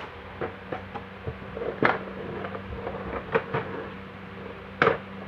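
A socket wrench set's carrying case being unlatched and opened: a series of clicks and knocks, loudest about two seconds in and again near the end.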